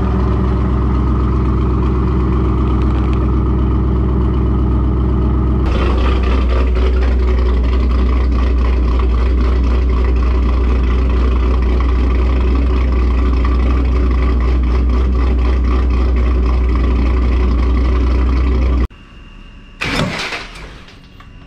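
Ford Mustang GT 4.6L three-valve V8 idling through long-tube headers, high-flow cats and muffler deletes, with stock camshafts. About six seconds in it cuts to the same exhaust idling with Ford Racing Hot Rod camshafts fitted, now a less even, noisier sound. The engine sound stops suddenly near the end, followed by a brief loud rush of noise.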